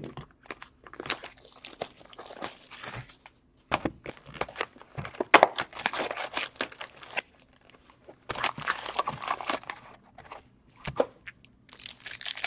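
Plastic wrapping crinkling and tearing as a sealed box of trading cards is unwrapped and opened, in irregular bursts with short pauses.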